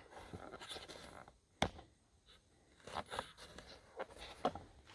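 Handling noise as the camera is picked up and repositioned: scraping and rustling, a sharp click about a second and a half in, then a few lighter taps and clicks.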